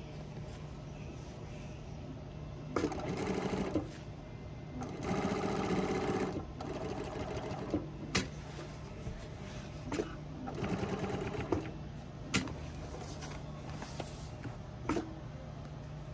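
Industrial sewing machine stitching in several short runs of about a second each, with pauses between them and a few sharp clicks in the gaps, over a steady low hum.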